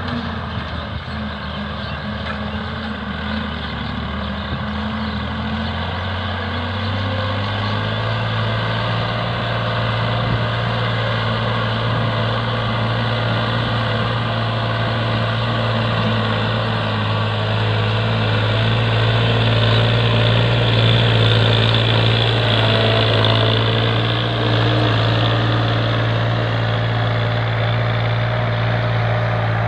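Farm tractor's diesel engine running steadily under load as it pulls a tillage implement across a field. It grows gradually louder, swelling most around the middle and late part.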